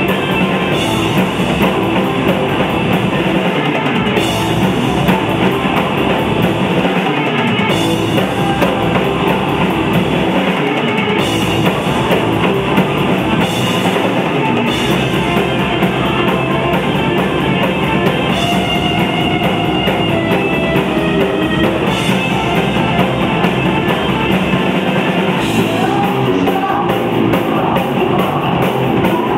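Rock band playing live: electric guitar over a drum kit, loud and continuous.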